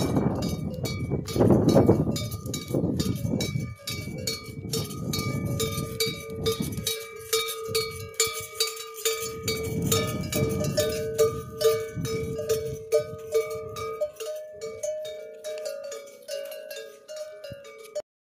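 Bells hung on a walking camel herd clanking and ringing irregularly, with several strikes a second and a few tones that keep ringing, under a low rumble for much of the time. The sound cuts off suddenly just before the end.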